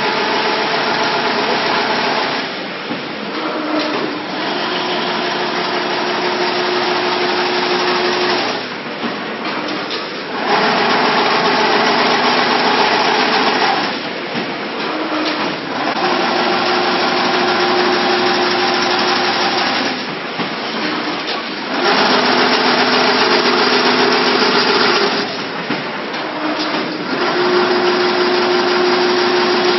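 CNC chain link fence weaving machine running in repeating cycles: a few seconds of loud mechanical running with a steady whine, then a brief quieter dip, about every five to six seconds.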